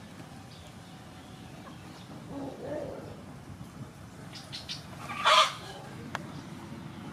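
Chicken calls in the background, with one short, loud call about five seconds in.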